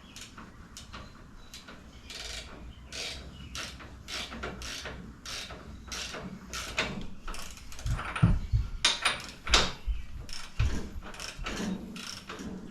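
Metal hand tools and engine parts clicking and clinking in irregular handling, with a few heavier knocks about two-thirds of the way through.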